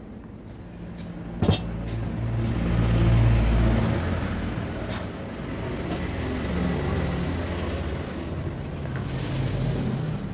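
A low engine rumble with a shifting hum, loudest about three seconds in. A single sharp knock comes about a second and a half in.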